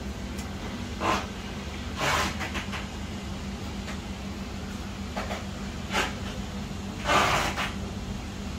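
Steady low hum from bench equipment, with about five short scraping and handling noises from repair work at the bench. The longest and loudest comes about seven seconds in.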